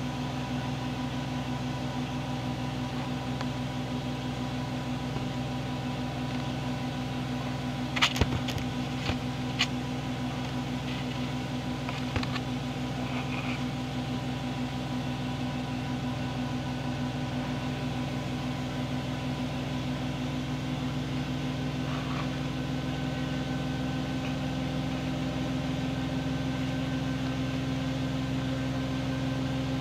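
A steady mechanical hum with several steady tones, with a few short clicks and taps about eight to twelve seconds in.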